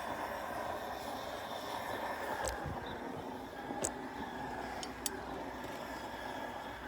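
Propane gas forge burner running with a steady roar, with a few faint sharp ticks partway through.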